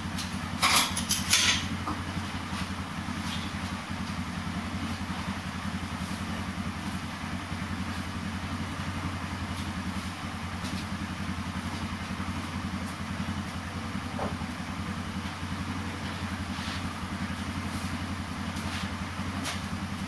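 Engine idling steadily, with a few sharp knocks about a second in.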